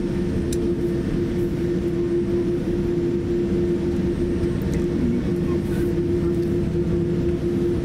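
Cabin noise of a Boeing 787-8 airliner taxiing: a steady low rumble with a constant hum over it.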